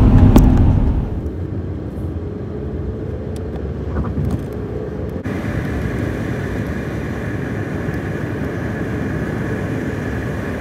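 Steady engine and road noise heard from inside a moving vehicle's cabin on a highway, louder for the first second. The sound changes abruptly about five seconds in, after which a faint steady high whine sits over it.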